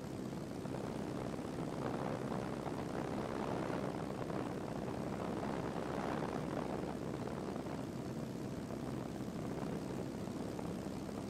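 Steady drone of a light propeller airplane's engine and rushing air, heard from inside the cabin.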